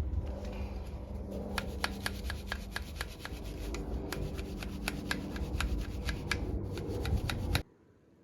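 Brush scrubbing the plastic parts of a Sharp KI-BX70 air purifier while they are washed: a steady rubbing with quick scratchy strokes about four a second, stopping abruptly near the end.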